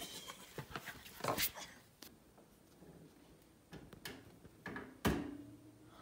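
Handling noise from objects being picked up and moved: scattered clicks, a rustle and soft knocks, with one louder knock about five seconds in that rings briefly.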